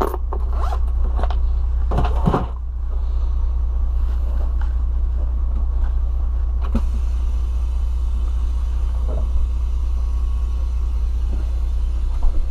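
A regional coach's engine running with a steady low drone, heard from the driver's seat. There are a few short knocks in the first couple of seconds and a single sharp click around the middle.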